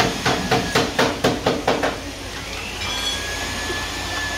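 Hammer blows in quick succession, about nine ringing strikes at roughly four a second, over the first two seconds. A vacuum cleaner runs with a steady whine underneath, coming up louder about three seconds in.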